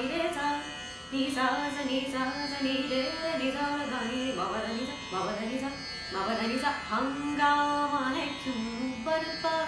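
A woman singing a ghazal melody in long, ornamented phrases, over steady held instrumental tones and light percussion.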